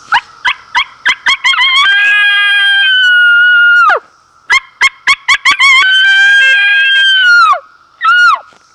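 Double-reed coyote howler diaphragm mouth call blown hard, imitating a coyote howl: a run of quick short yips leading into a long, high, held howl that drops off at the end, done twice, then one short falling yip near the end.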